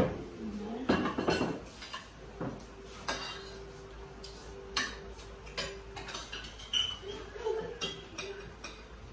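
Spoons and forks clinking against plates and bowls as people eat, in scattered short clicks, the loudest right at the start.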